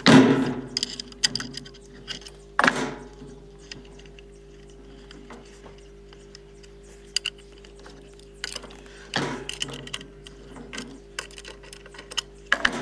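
Steel parts of a chair's recline mechanism and an adjustable spanner clinking and rattling while a bolt is worked loose and pulled out. Scattered clicks with a few louder metal clanks, the loudest right at the start, over a faint steady hum.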